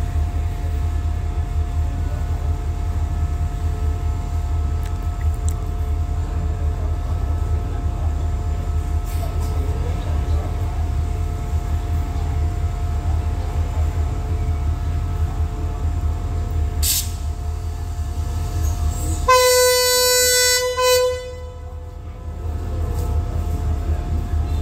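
Diesel locomotive running with a steady low rumble at the station. About 17 s in comes a short hiss, and about 19 s in one steady-pitched train horn blast lasts about a second and a half.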